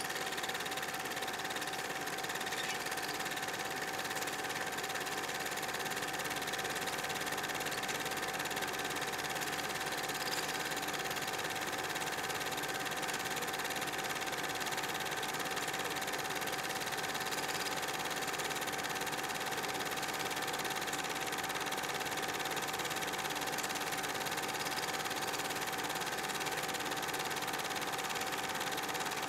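8mm cine projector running: a steady mechanical whir with a constant hum throughout.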